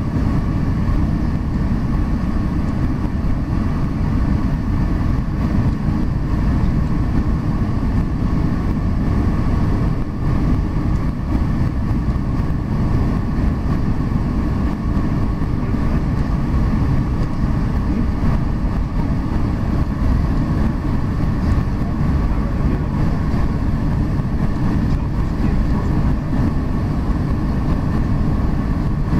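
Steady cabin noise inside a Boeing 747-400 on approach to land: a loud, even low rumble of the engines and the air rushing past the fuselage, with faint steady whine tones above it.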